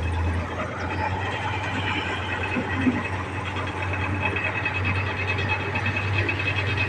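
Truck engine running steadily with a low drone and road noise while hauling a load of timber, with one brief knock about three seconds in.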